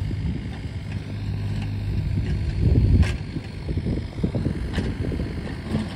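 Mini excavator's diesel engine running steadily with a low hum, with wind buffeting the microphone and a single sharp click about three seconds in.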